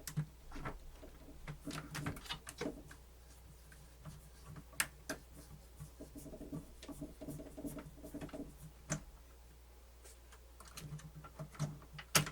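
Scattered small clicks and taps of plastic and metal parts being handled and unscrewed while a cassette deck's tape mechanism is taken apart.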